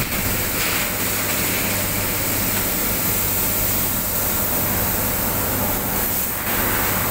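Steady factory-floor noise: an even rushing sound with a low electrical hum, from running machinery and a large industrial fan.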